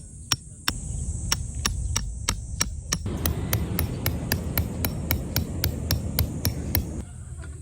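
A hammer striking repeatedly and evenly, about three blows a second, each blow sharp and ringing.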